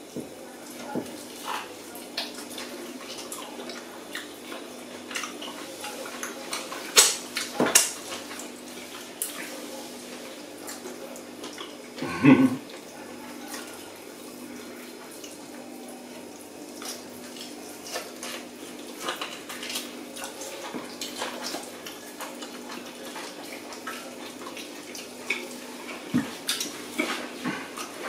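Close mouth sounds of eating oxtail stew by hand: wet smacking, sucking and chewing, made deliberately loud. Scattered clicks of fingers and bones on the plates run throughout, and there is a louder smack or slurp about twelve seconds in. A steady low hum sits underneath.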